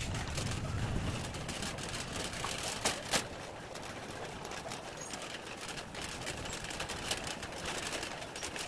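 Wire shopping cart being pushed across a hard store floor, its wheels rolling and the basket rattling, with two sharper clacks about three seconds in.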